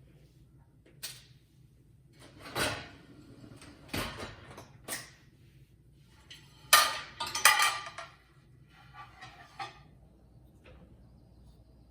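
Dishes and kitchenware being handled: a string of separate knocks and clinks, some ringing briefly, with a louder burst of clattering about seven seconds in.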